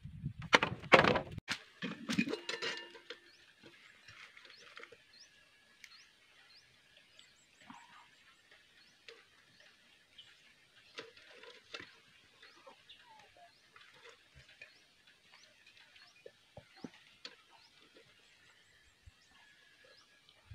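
Hollow knocks and clatter of green bamboo poles being handled and striking each other, with a brief ringing, in the first few seconds. After that, faint small clicks and repeated short high bird chirps.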